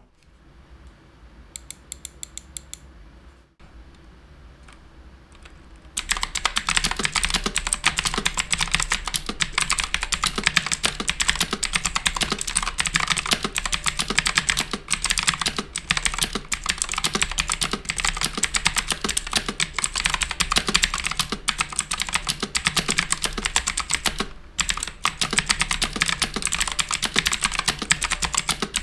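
Typing on an HP GK100 mechanical keyboard with clicky blue switches. A short run of key clicks comes a couple of seconds in, then fast, continuous typing starts about six seconds in.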